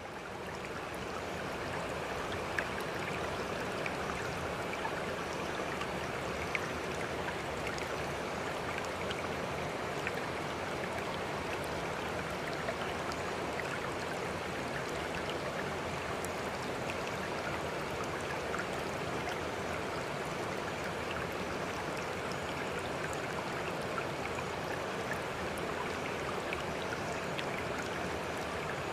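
Steady rushing, trickling water like a stream, with scattered small ticks and splashes. It fades in during the first second or two.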